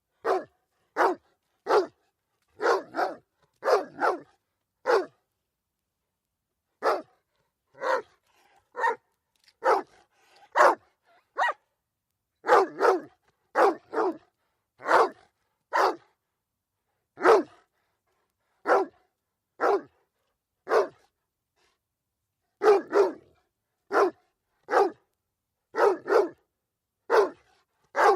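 A dog barking in short, sharp barks, some single and some in quick pairs, about one a second. It pauses for a couple of seconds twice, once about a fifth of the way in and once about three quarters of the way in.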